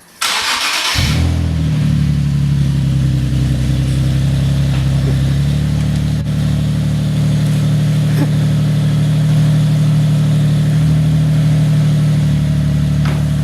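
Nissan 370Z's 3.7-litre V6 cold-starting through a freshly installed AAM 2.5-inch true dual catback exhaust: a brief crank of under a second, then the engine catches and settles into a steady, loud fast idle.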